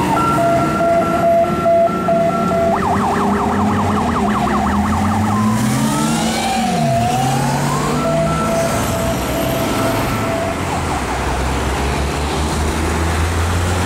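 Renault Midlum fire engine's siren cycling through its modes: a steady pulsing tone, then a rapid warble, then a slow falling-and-rising wail, then the steady tone again, stopping about ten and a half seconds in. Underneath runs the truck's diesel engine, pulling away as it gathers speed.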